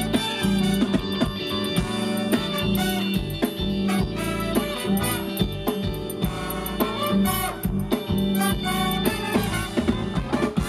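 Live band playing: a drum kit keeping a steady beat under keyboard and guitar.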